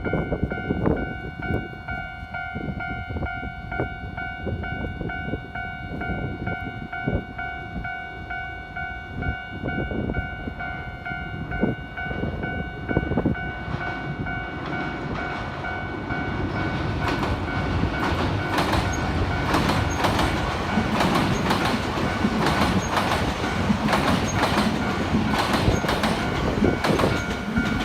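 Level-crossing warning bell ringing steadily as a Nankai electric train runs over the crossing. The wheels clack over the rail joints, and the clacking and rumble grow louder and denser from about halfway through as the train reaches the crossing.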